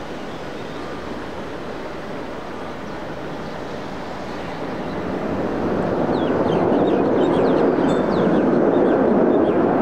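Distant jet engine noise from an Airbus A330 airliner on the runway: a steady rushing roar that swells noticeably louder from about halfway through.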